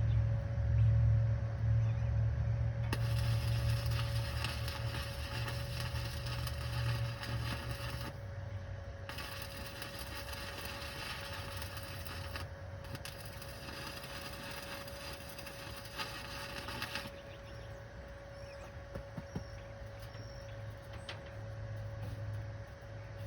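Electric welding arc crackling in three runs of about five, three and four seconds with short breaks between, as beads are laid on a steel exhaust stack pipe. A low hum, strongest in the first few seconds, and a faint steady tone run underneath.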